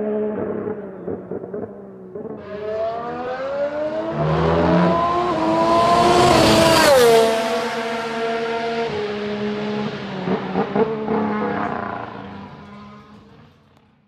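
Honda V6 turbo-hybrid engine of a Formula 1 car accelerating hard, its high-pitched note rising through the gears. It passes by about seven seconds in with a sharp drop in pitch, then runs on and fades into the distance.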